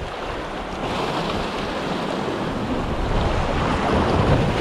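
Sea waves washing with wind buffeting the microphone, a steady rushing noise that grows a little louder about a second in.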